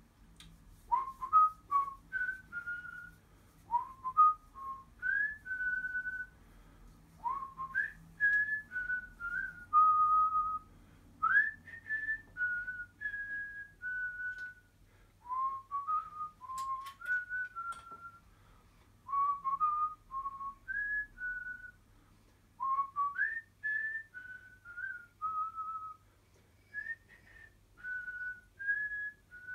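A person whistling a tune in short phrases of quick, gliding notes, with brief pauses between the phrases.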